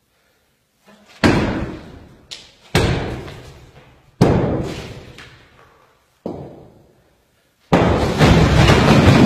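Heavy sledgehammer blows on a block wall, four hard strikes about a second and a half apart, each echoing and dying away in the bare room. A little before the end the wall gives way with a long, loud crash of collapsing masonry and falling rubble.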